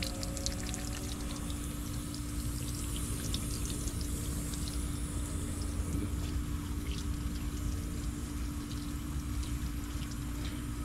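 Garden hose spraying water onto a stainless steel fish-cleaning table and a catfish carcass, splashing and trickling, with a steady hum underneath.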